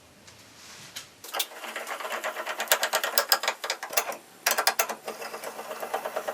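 Repaired bench vise being worked by its handle, its spindle and moving jaw giving a rapid metallic clicking and rattling. The clicking starts about a second in and breaks off briefly near four seconds.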